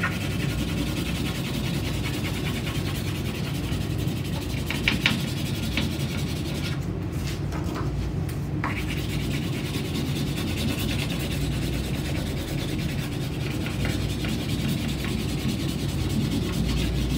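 Orange crayon scribbled back and forth over a strip of card laid on a table: a steady, scratchy rubbing, with a few light clicks.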